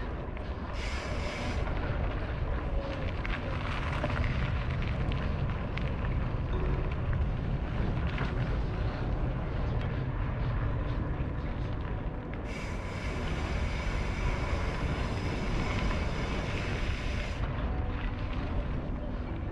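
Wind rushing over the microphone, with a mountain bike rolling along a dirt trail. A high, steady buzz starts and stops abruptly twice: briefly about a second in, and again for about five seconds from about twelve seconds in.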